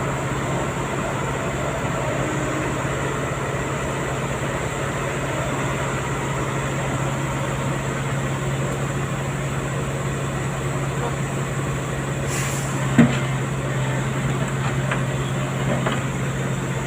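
Heavy diesel machinery engine running steadily at a low hum. Near the end there is a brief hiss, then a single sharp clank.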